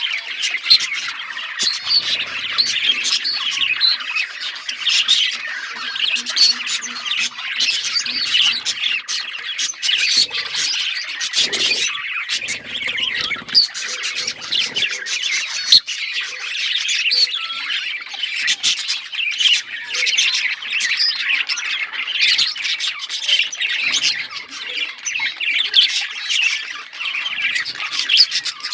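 A group of budgerigars chattering and chirping without a break, many short calls overlapping.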